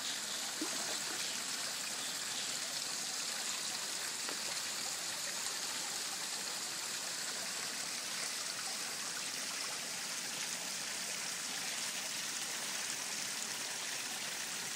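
Water running steadily into a garden koi pond, an even trickling rush with no break.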